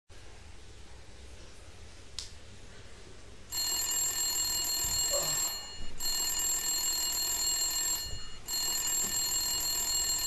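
Mobile phone ringing: a bright ring of several steady tones starts about three and a half seconds in and repeats three times, each ring about two seconds long with a short break between.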